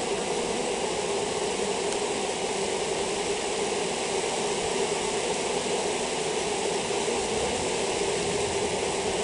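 Steady, dense buzzing of a large mass of honeybees swarming over the combs and a sheet after being shaken off their frames.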